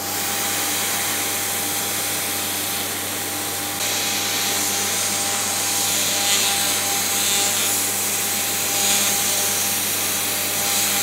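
CNC router spindle turning a 6 mm three-flute end mill at 12,000 rpm, cutting a finishing profile pass around a PEEK plastic part. It runs steadily, a held tone under an even rushing hiss, with a slight change in level about four seconds in.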